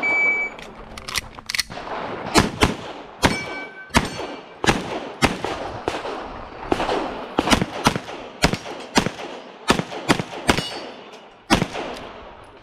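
A shot timer's start beep, then a pistol fired mostly in quick pairs, more than twenty sharp shots with short pauses between the strings, as a timed IPSC stage is shot.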